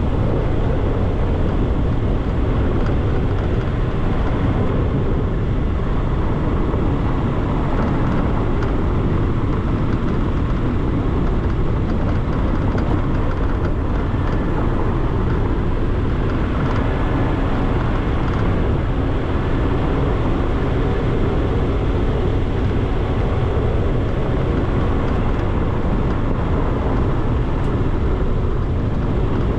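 Steady wind rush and road noise from a moving car, heard through a camera mounted outside on the hood.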